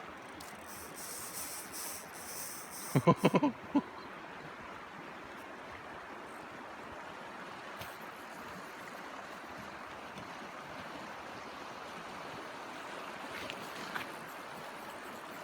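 Steady rush of flowing river water, with a brief vocal exclamation from a man about three seconds in.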